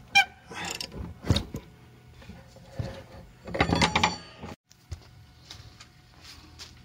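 Metal knocks and clinks of a socket and bar working the blade bolt on an upturned rotary mower's deck. A louder cluster of ringing metallic clanks comes a little past halfway.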